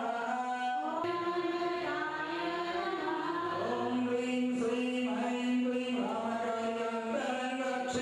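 A group of women chanting a Hindu devotional hymn in unison, with long held notes that step from one pitch to the next.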